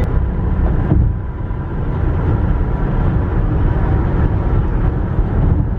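Steady low rumble of a car driving, road and wind noise.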